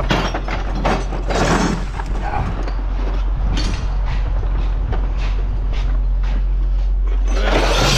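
Pieces of scrap metal clinking and clattering as they are handled and sorted, with a louder clatter about a second and a half in, over a steady low engine hum.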